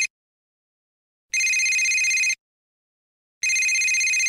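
Push-button desk telephone ringing in a steady repeating cadence: the tail of one ring at the very start, then a full ring of about a second starting about a second and a half in, and another starting near the end, with about a second of silence between rings. Each ring is a steady high-pitched tone.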